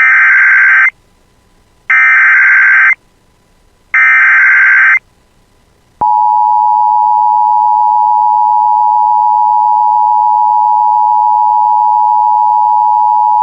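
Emergency Alert System broadcast opening: three one-second screeches of SAME digital header data, a second apart, encoding a severe thunderstorm warning. About six seconds in, the steady two-tone EAS attention signal starts and holds, announcing that an emergency alert follows.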